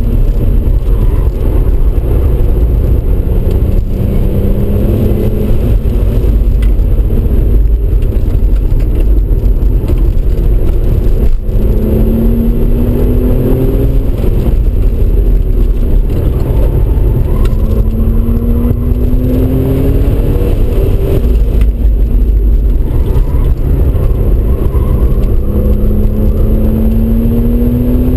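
Audi RS4 B5's 2.7-litre twin-turbo V6 under hard acceleration, heard from inside the cabin. Its note climbs in pitch in several long sweeps, over a constant loud road and wind rumble.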